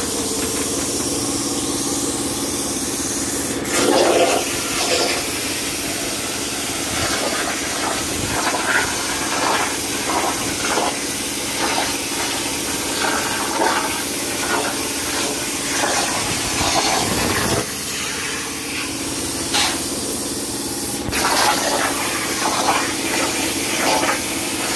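CNC plasma cutter cutting steel sheet: a steady hiss of the plasma arc and its compressed air over a low steady hum, with a sharp crack about four seconds in and another near the end.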